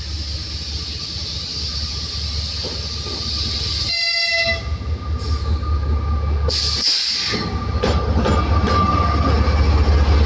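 A moving train's wheels running over the rails, a steady low rumble that grows louder, with a brief horn-like tone about four seconds in and a short hiss a little before seven seconds.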